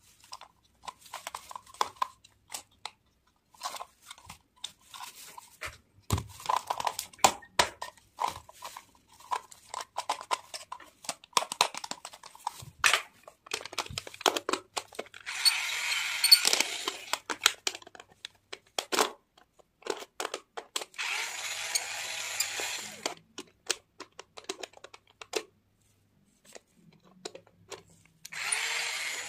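Plastic parts of a take-apart toy triceratops clicking and knocking as they are handled and fitted together. A battery-powered toy drill whirs three times, each for a second or two, driving plastic screws into the toy; the last run comes near the end.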